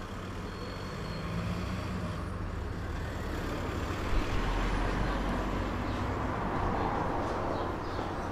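City traffic ambience: a steady rumble and hiss of road vehicles, with a brief louder bump about four seconds in.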